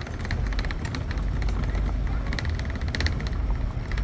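A vehicle driving slowly, a steady low rumble with irregular crackling and clicking over it.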